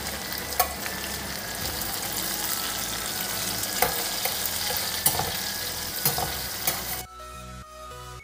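Sliced onions and tomato pieces sizzling in hot oil in a frying pan, with a spatula clicking against the pan a few times as they are stirred. About seven seconds in the sizzling cuts off and soft background music takes over.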